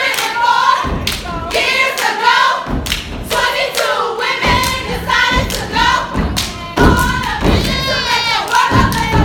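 Step team stomping on a stage floor and clapping in rhythm, with many women's voices chanting in unison over the beat.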